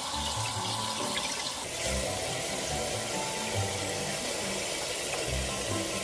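Tap water running steadily into a stainless steel bowl in a sink, splashing over the rinsed greens.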